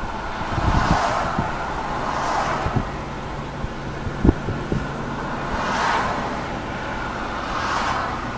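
Freeway traffic passing close by: four vehicles swish past one after another, each rising and fading, over a steady low hum. A single sharp knock comes about four seconds in.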